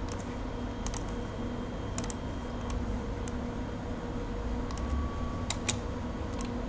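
A few scattered clicks of a computer mouse and keyboard, irregularly spaced, over a steady low room hum.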